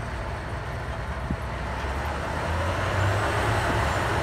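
Claas Lexion 585R combine harvester running, a steady low engine drone under a broad rushing noise as it blows dust out the back. The sound grows louder about halfway through.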